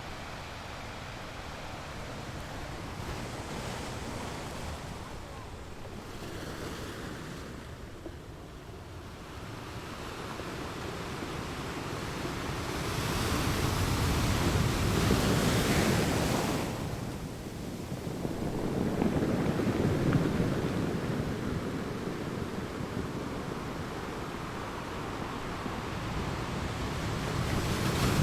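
Sea waves breaking on the shore, the surf swelling and easing in slow surges, the largest about halfway through and again near the end.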